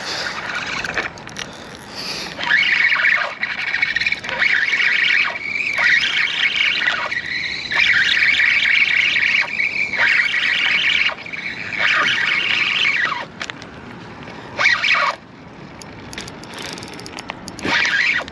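Shimano Sedona spinning reel's drag screaming as a fish pulls line off the spool: a rasping squeal in long runs with short breaks, then a few shorter spurts near the end.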